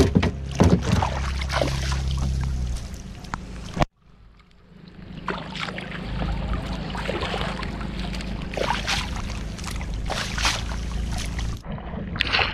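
A steady low hum cuts off abruptly about four seconds in. Then come water sloshing and splashing against a small wooden outrigger canoe in rain while a gill net is paid out, ending with sharp splashes from a paddle slapping the water to drive fish toward the net.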